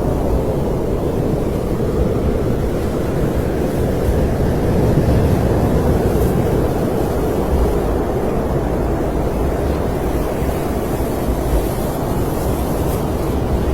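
Snowstorm wind blowing steadily, a deep rushing noise that swells a little partway through.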